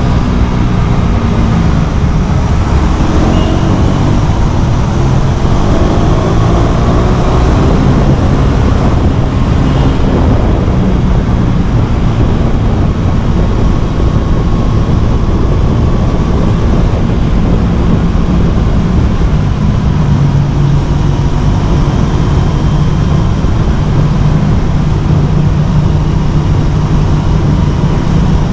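Motorcycle with a LeoVince LV One Evo carbon exhaust, running open with the dB killer baffle removed. The engine note rises and falls through the first several seconds, then holds steadier.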